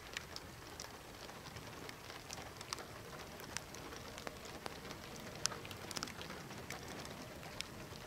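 Faint open-air ambience: a low steady hiss with irregular sharp little clicks and ticks scattered through it, a few stronger ones about two and a half, three and a half, five and a half and six seconds in.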